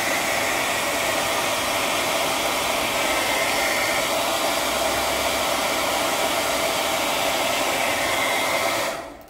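Handheld hair dryer blowing steadily with a faint whine, drying wet watercolour paint; it switches off near the end.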